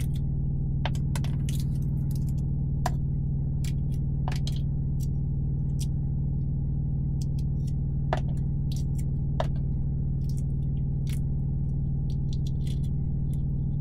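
Eggshell being peeled off a hard-cooked egg by hand: scattered small cracks and crinkling clicks over a steady low drone.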